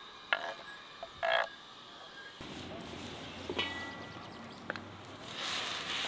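Cut tomato pieces scraped off a wooden cutting board onto a metal tray, with a couple of clicks and a short rasping scrape about a second in. Then meat and vegetables sizzling in a wok over a wood fire, growing louder as a ladle stirs them near the end.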